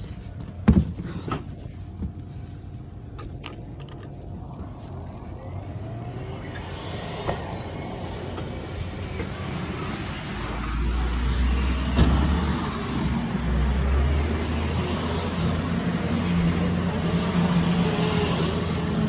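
Ride-on floor scrubber running as it drives down a store aisle: a steady motor and vacuum hum that grows louder, with a deep drone setting in about ten seconds in. There is a single sharp knock near the start.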